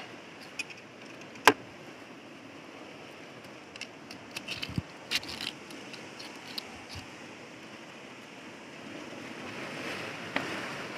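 Metal knife blade scraping and prying gooseneck barnacles off wet rock: scattered sharp clicks and scrapes, the loudest about a second and a half in and a cluster around four to five seconds in, over a steady background rush that swells near the end.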